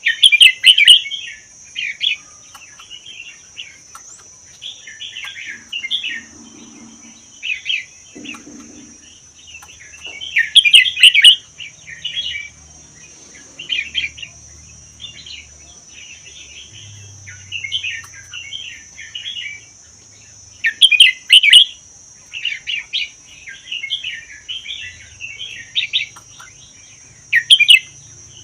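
Red-whiskered bulbul singing: short phrases of chirpy notes repeated every second or two, with a few much louder bursts, over a steady high-pitched hiss.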